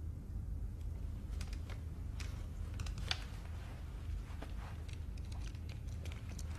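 Steady low rumble of room tone, with scattered faint small clicks and rustles from a hand removing a pair of wire-rimmed glasses.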